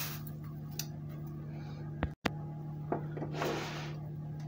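Hands handling a rolled sheet of yeast dough over a metal springform pan: soft rubbing and rustling with a few light knocks, over a steady low hum. The sound cuts out for a moment about halfway.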